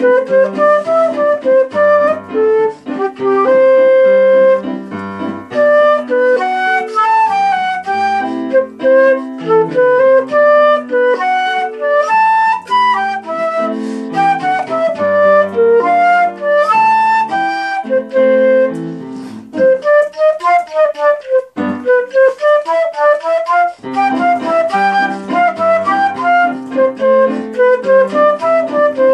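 Concert flute playing a lively melody of short and held notes over a piano accompaniment. About twenty seconds in, the piano drops out for a few seconds and the flute plays a rising and falling run alone before the piano comes back in.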